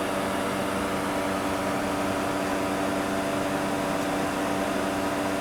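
Steady machinery hum: a low, unchanging tone with its overtones over a noise floor, holding an even level throughout.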